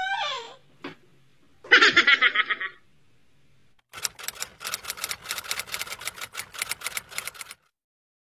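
Typewriter sound effect: a fast run of key clicks lasting about three and a half seconds. It is preceded, about two seconds in, by a brief burst of laughter lasting about a second.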